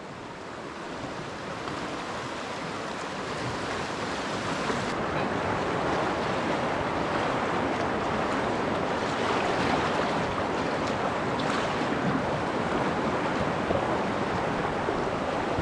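Rushing water of a shallow rocky river rapid, a steady dense roar that grows louder over the first few seconds and then holds even.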